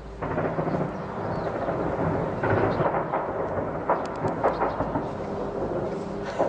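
Continuous deep rumble of distant shelling and war aircraft, with scattered sharp cracks of gunfire about two and a half seconds in and again around four seconds.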